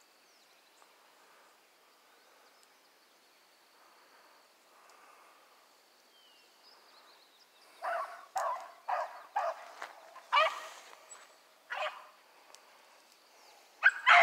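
Rabbit-hunting hounds barking on the trail, giving voice on a rabbit's scent: a quick run of barks starting about halfway through, and two more loud ones at the very end. Before that there is only faint outdoor background.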